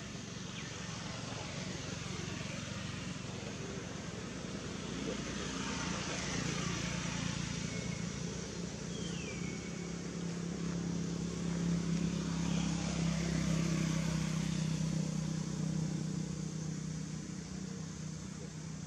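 A motor vehicle passing some way off: a low engine hum that swells through the middle and fades toward the end, over steady outdoor background noise.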